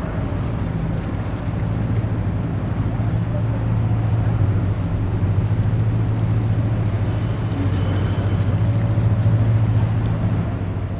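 Steady low drone of a boat engine, a little stronger through the middle, with wind noise on the microphone.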